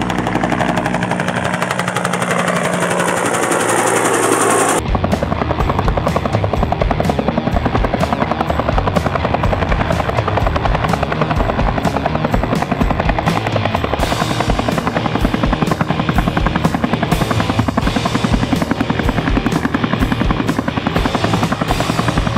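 Two-bladed Huey-type military helicopter. It first passes with a falling pitch, then, about five seconds in, its close rotor chop takes over as a fast, steady beat while it hovers low.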